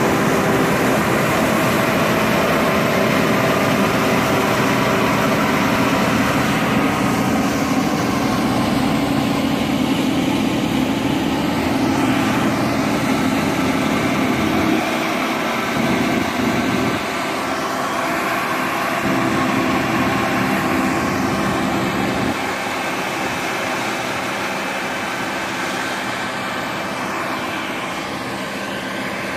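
Combine harvesters running while harvesting: a steady machine drone with a low hum that fades in places.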